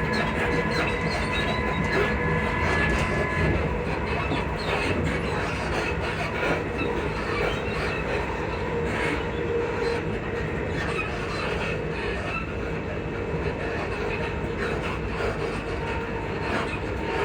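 Class 334 electric multiple unit running at speed, heard from inside: steady rail and running noise with faint whining tones and scattered short squeaks and clicks from the suspension. A higher whine stops a few seconds in.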